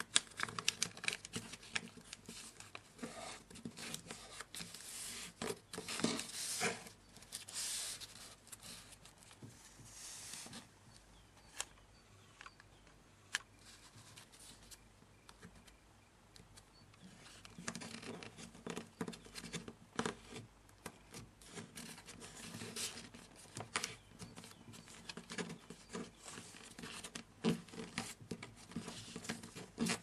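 A sheet of origami paper being folded by hand on a tabletop: irregular rustling and crinkling as the paper is turned, with scraping as creases are pressed flat with the fingers. It goes quieter for a few seconds in the middle.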